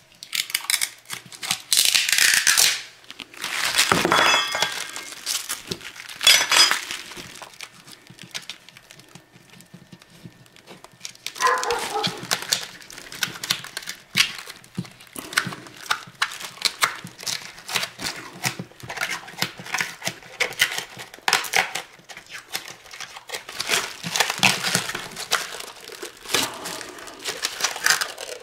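A clear plastic bag crinkling and rustling as it is handled, in uneven bursts, with scattered light clicks and taps.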